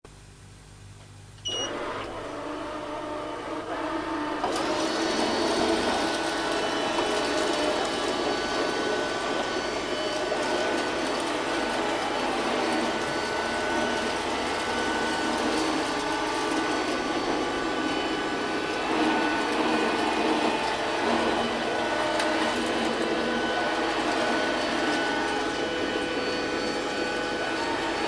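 Clever&Clean Z-series robot vacuum cleaner starting up: a short high beep about a second and a half in, then its motors and brushes begin running, rising to full suction a few seconds later and running steadily.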